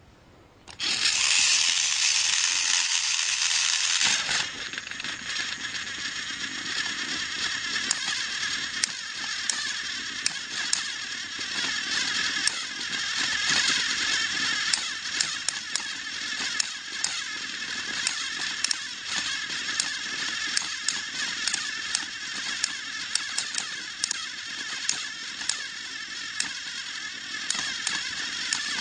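Motorized toy trains running: a high whirring of small electric motors and gears, with many quick irregular clicks of wheels and couplings on plastic track. It comes in loud about a second in and settles a little quieter after about four seconds.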